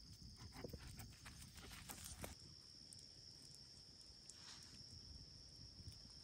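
Quiet night outdoors: a steady high insect trill, with soft rustling footsteps and crackling through grass and dry leaves in the first two seconds or so and a lighter rustle later.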